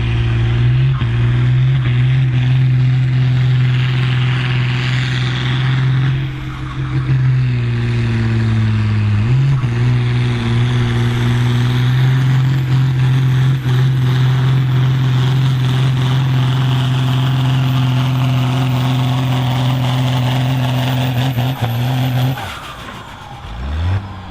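Ford TW-series pulling tractor's diesel engine running hard at full power under load, a steady high note with a brief dip in pitch about nine seconds in. Near the end the engine drops off sharply and its pitch falls, then briefly rises again.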